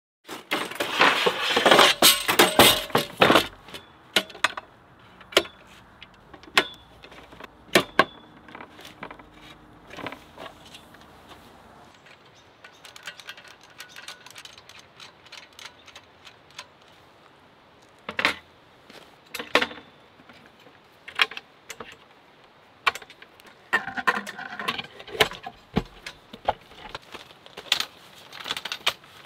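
Metal clinks, clicks and rattles of a Snow Peak IGT table frame and its legs being handled and assembled: a dense clatter over the first few seconds, then scattered single clicks and knocks, with another short flurry near the end.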